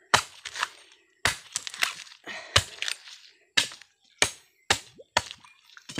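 A blade chopping into a coconut to open it: about a dozen sharp chops, roughly two a second.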